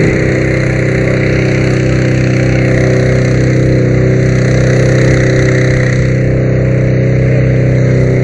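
Engine running steadily at a constant speed, loud and even with an unchanging pitch.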